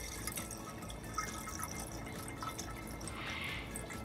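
Faint dripping and trickling of liquid being poured into a container, the hydrogen peroxide going in, with a brief soft pouring hiss about three seconds in.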